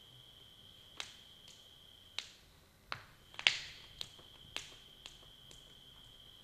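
About ten sharp clicks at uneven intervals, the loudest about three and a half seconds in, over a steady high-pitched whine that drops out for about a second near the middle.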